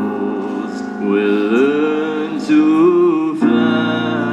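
A singer holding long, drawn-out notes of a slow pop ballad over chords from a Roland stage keyboard, moving to a new note about a second in and again near the end.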